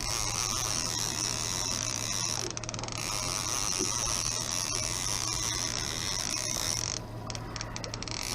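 Fishing reel being cranked to bring in a hooked salmon, its gears whirring and clicking steadily, over a low steady hum.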